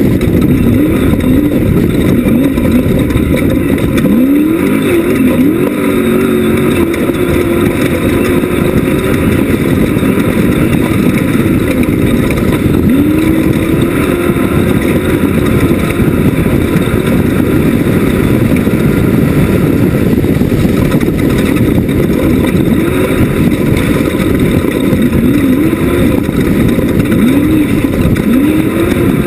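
Class 1 off-road race buggy running hard, its engine note rising and falling several times with the throttle over a loud, constant rumble.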